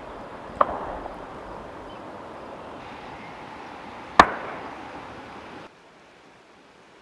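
Two gunshots from target shooting, about three and a half seconds apart, the second much louder, each trailing off in a short echo.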